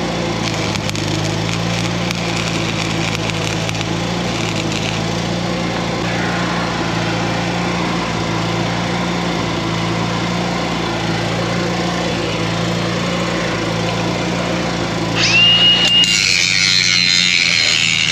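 Arc welding crackle over a steadily running engine. About fifteen seconds in, an angle grinder whines quickly up to speed and starts grinding, which is louder.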